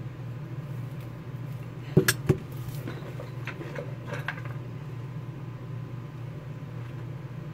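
Small metal objects clinking and knocking as they are handled: two sharp knocks about two seconds in, then a few lighter clicks, over a steady low hum.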